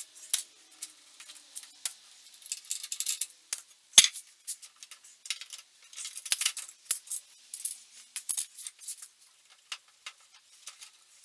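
Metal bar clamps and quick clamps being released and pulled off a glued-up wooden chair frame: a steady run of clicks, clinks and rattles, with a sharper knock about four seconds in.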